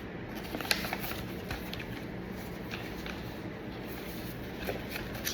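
Paper documents being handled and shuffled: a few light clicks and rustles over a steady background hum.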